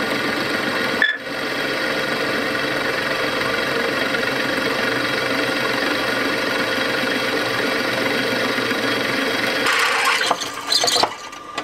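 Electric drill running steadily as a freshly sharpened twist drill bit bores into a metal plate clamped in a drill vise. The motor hum dips briefly about a second in. The cutting turns harsher near the end and then stops.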